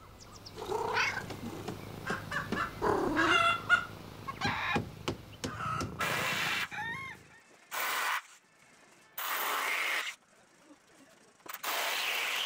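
A cat meowing several times, short curving calls over a low steady purr. From about halfway through, four short bursts of power-drill noise, each under a second, as battens are fixed in place.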